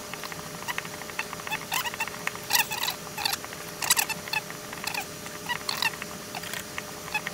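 Copper wire being wound by hand onto a radio antenna coil form: an irregular run of short scratchy clicks and chirps, several a second, as the wire is drawn around and the form is handled, turn by turn.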